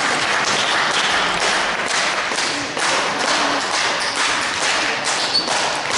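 Table tennis balls clicking off bats and tables in an irregular run of sharp taps, two or three a second, over the steady background noise of a sports hall.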